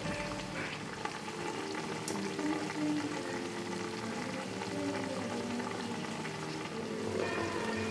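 Chicken curry boiling in a pot: a steady bubbling simmer.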